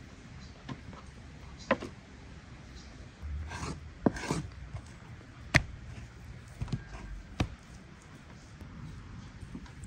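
Kitchen knife slicing raw beef on a wooden cutting board: soft scraping strokes of the blade through the meat, with four sharp knocks of knife or meat on the board.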